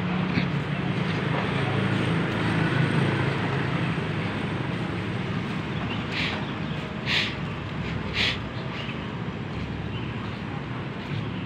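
Street traffic: a steady low hum of motor vehicles running past, louder in the first half, with three short high-pitched sounds around the middle.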